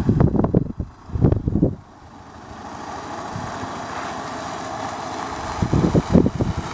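Carryall utility golf cart running steadily as it drives along. Gusts of wind rumble on the microphone near the start and again near the end.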